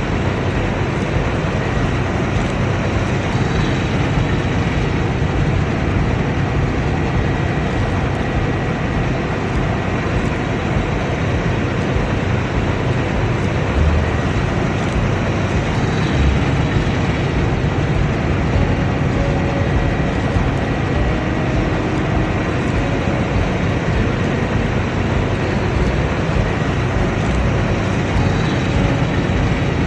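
Combine harvester running steadily, an even dense drone with a faint high whine over it.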